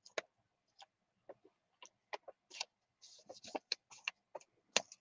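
Sheets of boiled, leaf-printed lined paper being handled and peeled apart by hand, giving irregular crinkles and crackles.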